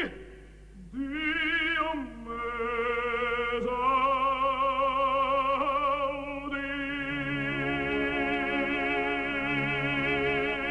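Operatic baritone voice singing long held notes with a wide vibrato and a rising glide into a phrase, over a sustained orchestral accompaniment that grows fuller in the second half.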